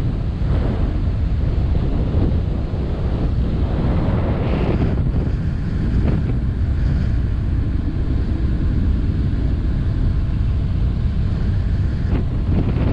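Wind buffeting the microphone on a car ferry under way, with a steady low rumble and the rush of water along the hull beneath it.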